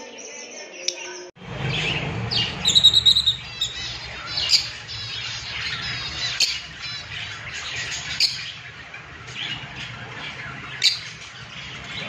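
Caged lovebirds chirping and squawking over a low steady hum. The sound starts after an abrupt cut about a second and a half in.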